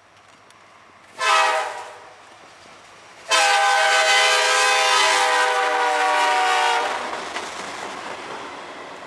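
Air horn of a CSX SD70ACe diesel locomotive leading a freight train: a short blast about a second in, then a long blast of about three and a half seconds, several notes sounding together. After the horn stops, the rumble and wheel clatter of autorack cars rolling past close by.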